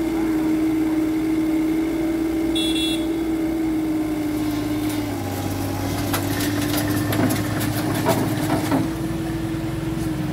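Mini excavator's small diesel engine running steadily at high revs while its hydraulics work the arm, with a string of metal clanks and knocks in the second half as the tracks climb onto the truck's bed.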